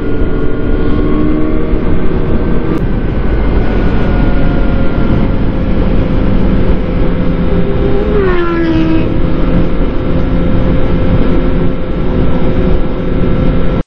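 Yamaha R1's inline-four engine running at highway speed, with heavy wind noise on the microphone. About eight seconds in, the engine note drops as the revs fall.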